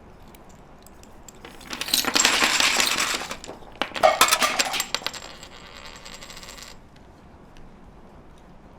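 Small hard objects clattering and jingling in two bursts, the second with a brief ringing note, then a faint ringing that fades out.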